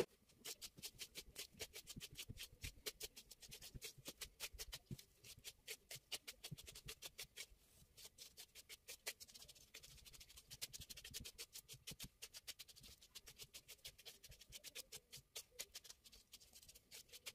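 Faint, rapid series of light clicks or taps, about five or six a second, keeping on steadily.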